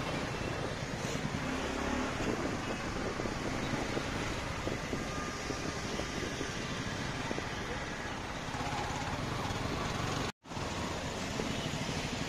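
Road traffic in a jam: cars, motorcycles and a bus idling and creeping, with voices in the background. The sound cuts out completely for a moment about ten seconds in.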